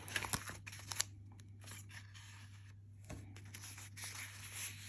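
Paper and card packaging being handled and opened: rustling with scattered light clicks and taps, busiest in the first second and again near the end, over a faint steady low hum.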